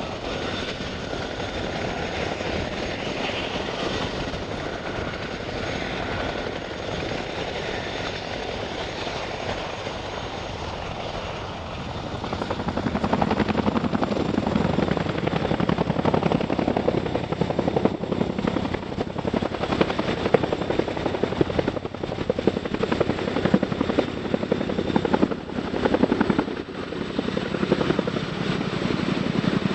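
CH-47 Chinook's tandem rotors and twin turboshaft engines running, with a steady high turbine whine. About twelve seconds in the rotor beat grows louder as power comes up for takeoff, and the helicopter lifts off.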